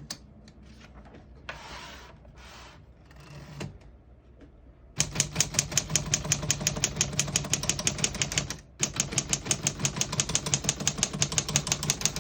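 Typing on a 1936 Corona Special Standard manual typewriter: a fast, even run of type-bar strikes, about five or six a second, starting about five seconds in, with one brief pause partway through. It is preceded by a few soft scraping noises.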